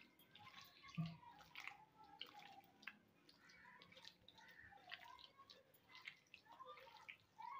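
Faint, wet squelching and smacking of raw boneless chicken pieces being kneaded by hand in a wet marinade on a plate, with a soft knock about a second in.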